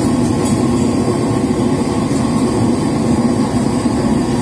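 A commercial gas wok range running with a loud, steady rushing noise from its burner and the kitchen extraction, with a couple of faint clicks.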